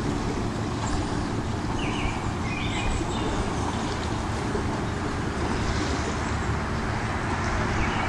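Steady rumbling background noise with hiss, even throughout. About two seconds in come a few short, soft scratches, from an alcohol marker's nib on paper.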